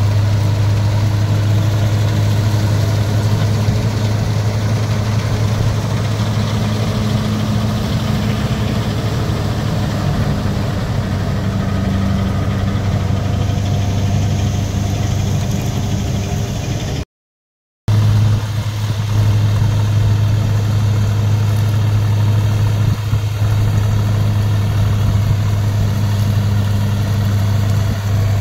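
Deutz-Fahr 4055 tractor's diesel engine running steadily under load, driving a Jagatjit straw reaper whose drum and blower chop wheat stubble into chaff, a constant deep drone. The sound drops out for under a second about two-thirds of the way through.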